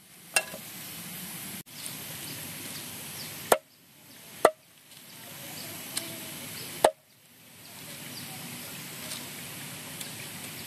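A handful of sharp chopping strikes, spaced one to three seconds apart, over a steady background hiss; the strikes stop after about seven seconds.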